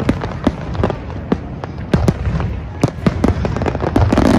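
Aerial firework shells bursting in quick, irregular succession: sharp bangs several times a second over a steady low rumble from the barrage.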